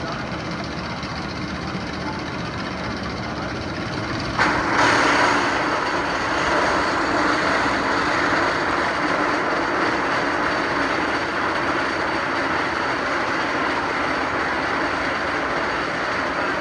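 Roller coaster train running on its track, a steady rumble that becomes suddenly louder about four seconds in and stays loud.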